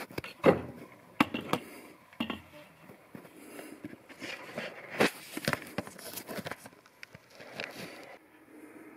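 Irregular light clicks and knocks of handling noise over faint room tone.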